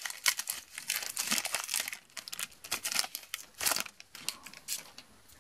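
Foil trading-card booster pack wrapper being torn open and crinkled by hand: a dense run of crackles that thins out after about four seconds.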